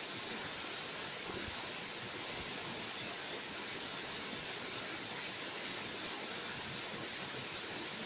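Waterfall cascading over rocks: a steady, even rush of falling and splashing water.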